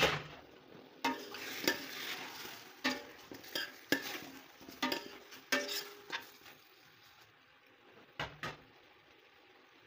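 Chicken pieces being stirred in oil in a stainless steel pot: a utensil scrapes and knocks against the metal over some sizzling for about six seconds, then two more knocks a little after eight seconds.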